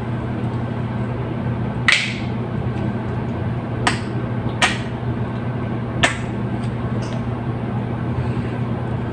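Plastic lotion bottle being handled: its cap is snapped open and the bottle squeezed, giving a handful of short sharp clicks, the one about two seconds in the loudest. Under them runs a steady low hum.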